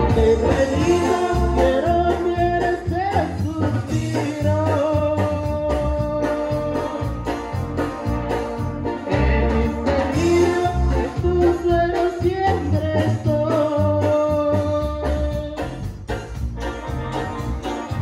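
Live band music: an electronic keyboard playing with an organ-like sound over drums and bass, with a singer's voice on a microphone.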